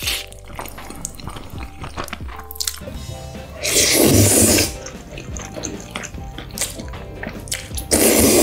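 Person slurping long strands of noodles in red sauce: a loud slurp of about a second roughly four seconds in, and a shorter one near the end, with small wet eating sounds between, over background music.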